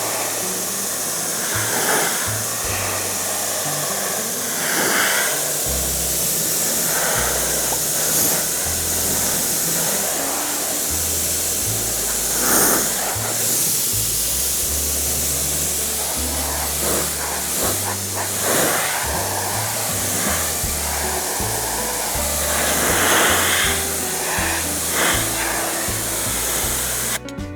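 Steady hiss of compressed air spraying at seat foam while contact adhesive is sprayed on and flashed off, with louder spurts now and then. Background music with a bass line plays under it, and both cut off abruptly near the end.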